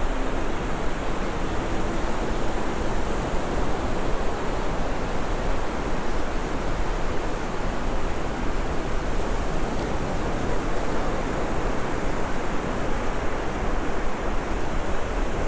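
Ocean surf breaking along a beach, a steady even wash of noise, with wind.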